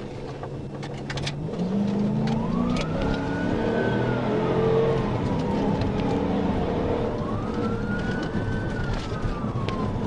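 Police patrol car siren wailing in two slow rise-and-fall sweeps, starting about two seconds in. Under it the car's engine runs hard and climbs in pitch as the car accelerates.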